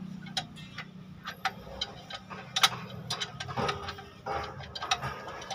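Scattered light metallic clicks and taps, with a brief scrape or two in the second half, as common-rail diesel injectors and their metal hold-down bracket are worked into place by hand. A steady low hum runs underneath.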